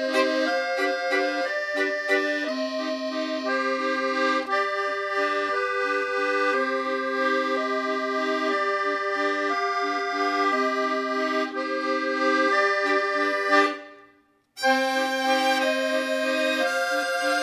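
Tango music led by a bandoneon, sustained reedy chords and melody moving from note to note. It drops out for a moment about fourteen seconds in, then starts again.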